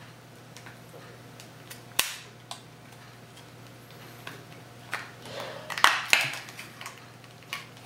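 Plastic packaging being opened around a new wireless card: a sharp snap about two seconds in, a few light ticks, then crinkling with two more clicks around five to six seconds in.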